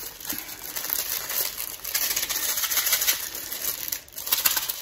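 Small clear plastic jewelry bag crinkling and rustling as it is handled and opened by hand, a busy run of quick crackles.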